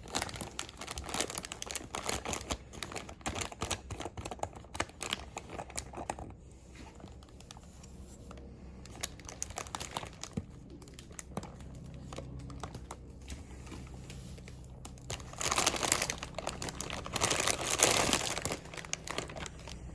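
Plastic vacuum-bagging film crinkling and tearing as it is pulled off a carbon-fibre layup. Dense crackling at first, then a quieter stretch, then two louder bursts of rustling near the end.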